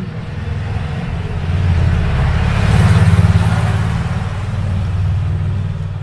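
A motor vehicle passing by: a low engine rumble that swells to its loudest about three seconds in and then fades.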